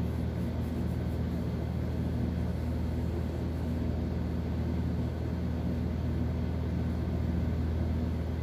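Steady low mechanical hum that holds level throughout, with no rhythm or change.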